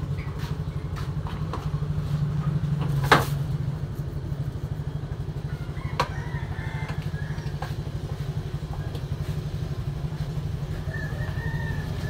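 Hard plastic clicks from a collapsible baby bathtub's folding frame being worked by hand, with one loud snap about three seconds in and a sharper click about six seconds in. Under them runs a steady, low, fast-pulsing engine hum.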